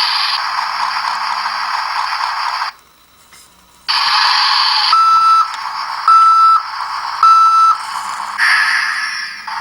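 Electronic sound effects from a battery-powered toy construction vehicle's small speaker: a harsh, noisy engine sound that cuts out about three seconds in, then starts again with three evenly spaced electronic beeps.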